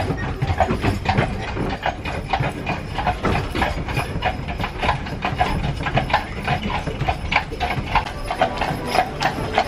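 Hooves of two harness horses clip-clopping on pavement as they pull a horse-drawn omnibus, in a quick, even patter of hoofbeats. Under the hoofbeats is the steady rumble of the carriage rolling along.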